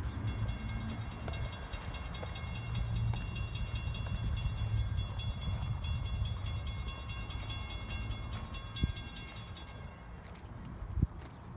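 NJ Transit push-pull commuter train rolling past with a low rumble and a steady high-pitched whine over it. The whine stops about nine seconds in, and a couple of sharp clicks follow.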